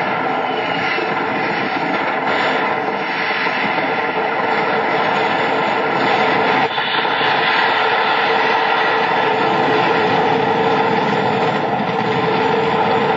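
Loud, steady rushing roar from the burning fireworks factory, with no separate bangs.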